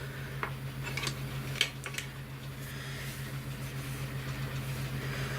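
A steady low electrical hum with a few light clicks and taps of small objects being handled, most of them in the first two seconds.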